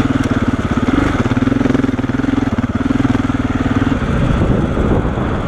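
KTM 690 Enduro's single-cylinder engine running at low speed on a steep dirt climb, with a steady pulsing note. About four seconds in, the note gives way to a rougher, lower sound.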